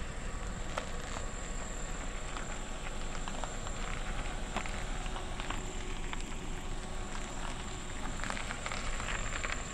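Kia Picanto hatchback running at low speed as it creeps slowly into a parking space, under a steady hiss of outdoor noise with scattered small crackles.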